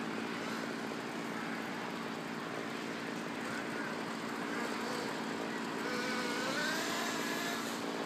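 Radio-controlled car's motor running steadily, with a wavering rise and fall in pitch near the end as it speeds up and slows.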